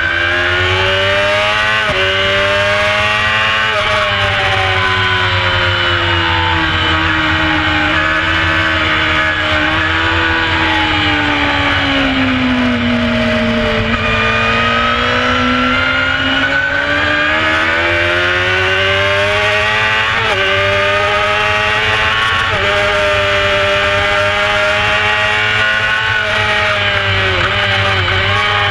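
Carburetted 600cc four-cylinder sport bike engine racing at high revs under the onboard camera, with wind rush. The revs climb with brief dips at each gear change, fall to their lowest about halfway through on the way into a corner, then build again on the way out.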